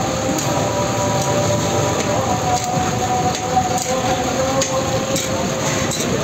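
Metal spatula and slotted ladle scraping and clicking against a large steel tawa while chicken liver is stirred in hot, sizzling gravy. A dense, steady noise and a faint steady hum run underneath.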